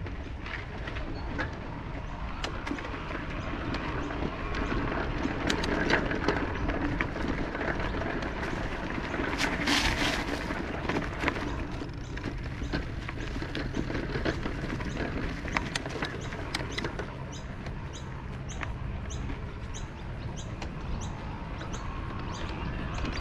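Ride noise from an electric mountain bike in motion: a steady low rumble of tyres and wind on the microphone, with scattered clicks. Over the last third a bird chirps about twice a second.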